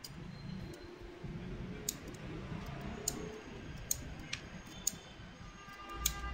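Steel nippers clicking and snipping against the lead lugs of a stacked lead-acid battery plate pack, with about seven sharp, irregular clicks.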